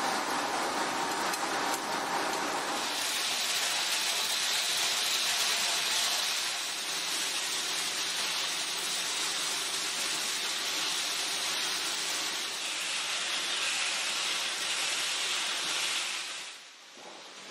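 Pet food production machinery running, with dry kibble pouring and tumbling through stainless hoppers and a rotating coating drum: a dense, even rushing hiss. The sound changes about three seconds in and drops noticeably quieter about a second before the end.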